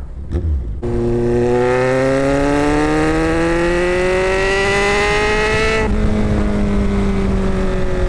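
Kawasaki Z1000 inline-four engine through a MIVV Double Gun slip-on exhaust, accelerating hard under way, its note climbing steadily for about five seconds. Then the note suddenly softens and its pitch sinks slowly.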